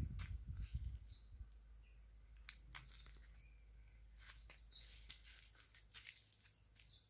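Faint outdoor birdsong: short high calls sliding downward, repeated every second or two, over a steady high-pitched chirring. A low rumble and rustling from the handheld camera brushing through branches fill the first second.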